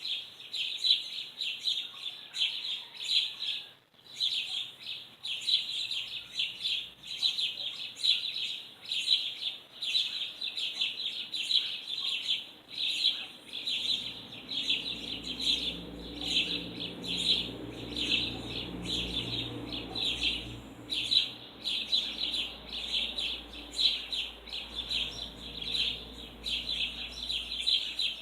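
Many small birds chirping rapidly and continuously in a dense, high-pitched chorus, with a brief gap about four seconds in.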